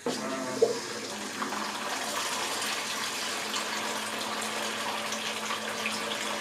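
Small recirculating pump starting suddenly and running with a faint steady hum, while wort sprays from the nozzles of a flexible sparge arm and splashes steadily onto the grain bag in the mash pot.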